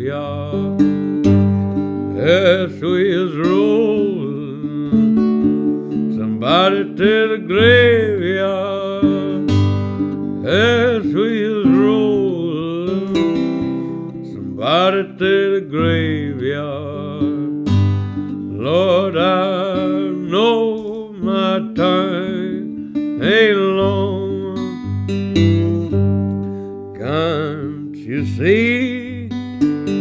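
Music: an instrumental break of a song played on acoustic guitar, with steady low bass notes under a lead line whose notes bend up and down.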